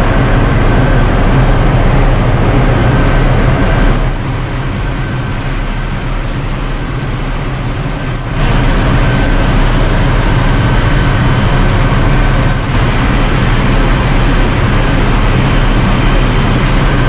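Marine diesel generator engine running steadily in a ship's engine room: a loud, even mechanical drone with a constant low hum underneath and a faint steady high whine.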